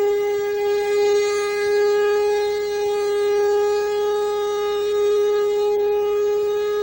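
Chrysler air-raid siren sounding a steady, unwavering tone with strong overtones, swelling slightly in loudness.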